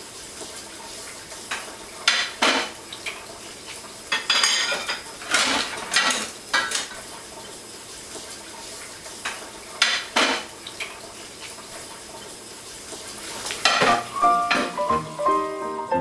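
Dishes and cutlery clattering and clinking in a kitchen sink every few seconds over the steady hiss of a running tap. Piano music comes in near the end.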